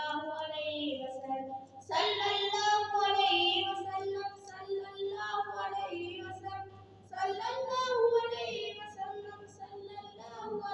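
A boy singing a naat, a devotional song praising the Prophet Muhammad, solo in long, held, ornamented phrases, with new lines beginning about two and seven seconds in. A steady low hum runs underneath.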